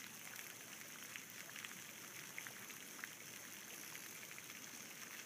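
Faint water sounds: soft trickling with a few light drips.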